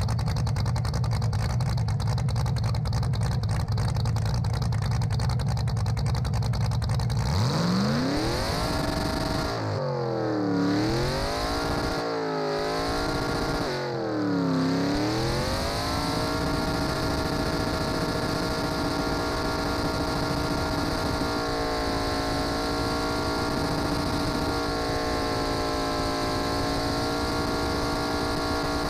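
Cammed LS V8 of a Chevy S-10 burnout truck, with zoomie headers out through the hood, idling loudly. About seven seconds in it is revved hard, dipping and climbing three times. From about sixteen seconds on it is held steady at high revs, spinning the rear tyres in a smoking burnout.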